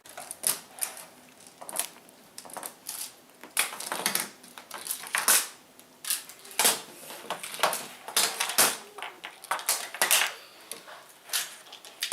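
Hard plastic toy pieces clicking and clacking together in an irregular run of sharp knocks, several a second at times.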